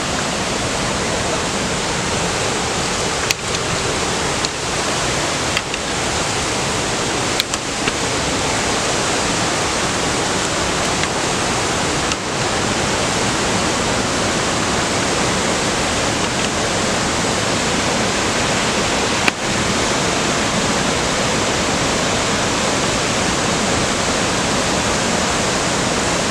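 Waterfall rushing as a loud, steady roar of water. A few small clicks sound over it.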